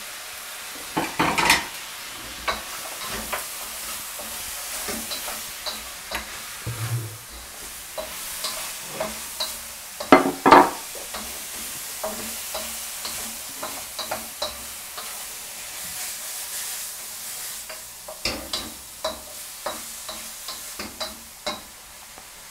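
Courgettes, red pepper and pork stir-frying in a hot wok: a steady sizzle under the repeated scrape and knock of a wooden spatula tossing the food against the wok. The clatter is loudest about a second in and again near the middle.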